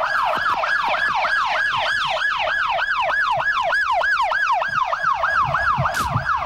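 Police car siren in fast yelp mode, its pitch rising and falling about four times a second.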